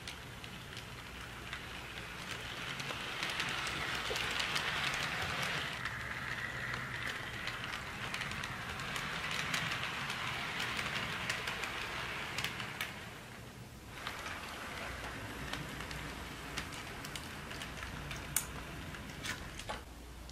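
HO scale model freight train rolling along sectional track: a steady whir with many small clicks from the wheels on the rails. It grows louder twice as the train passes and drops away about fourteen seconds in.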